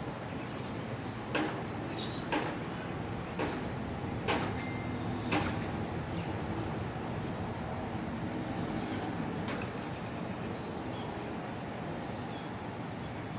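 Fully automatic washing machine running with a steady low noise, and about six sharp knocks roughly a second apart over the first five seconds.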